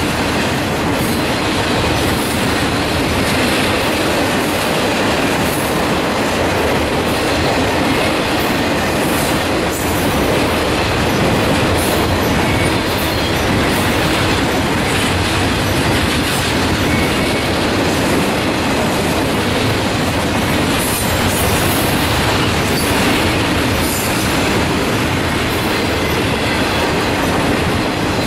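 Freight train of flatcars loaded with long welded rail rolling past: steady noise of steel wheels on the rails, with brief high-pitched squeaks now and then.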